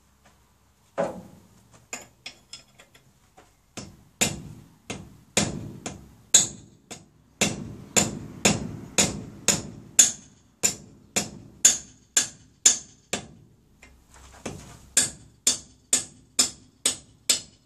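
Hammer striking a wrench on the wheel nuts of a tractor's rear wheel to break them loose: a long run of sharp metal-on-metal blows, about two a second, each ringing briefly, with a short pause about three-quarters of the way through.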